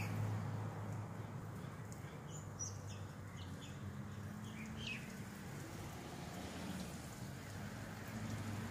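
A small bird chirping, a quick run of short high calls a couple of seconds in, over steady outdoor background noise and a faint low hum.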